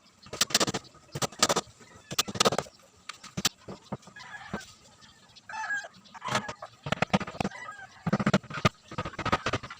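Irregular sharp knocks from woodwork on the box, several a second in short runs. Chickens cluck a few times between them, about four and five and a half seconds in.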